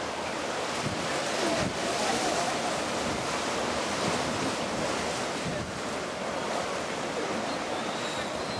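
Wind buffeting the microphone over the steady wash of harbour water against the pier.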